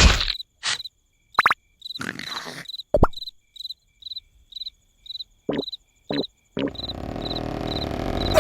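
Cricket chirping, short evenly spaced chirps about two to three a second, as a night background. It is broken by several short, sudden cartoon sound effects, and near the end a louder steady noisy sound comes in under it.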